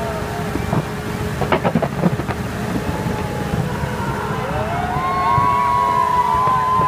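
New Year fireworks display going off over a dense crowd rumble, with a quick cluster of sharp bangs about one and a half to two seconds in. From about four seconds in, several long held tones slide up and overlap.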